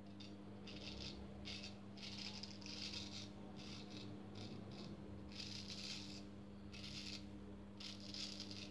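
Freshly honed straight razor scraping through lathered stubble on the cheek and sideburn: about a dozen short, dry rasping strokes, some in quick succession and a couple longer, over a faint steady hum.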